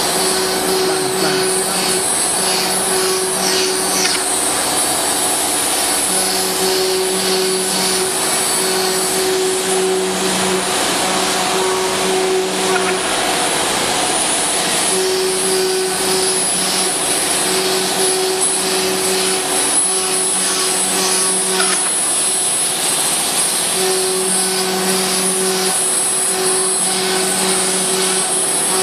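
CNC router spindle running and cutting a wooden board, a steady whine with cutting noise. A lower drone comes and goes every second or two.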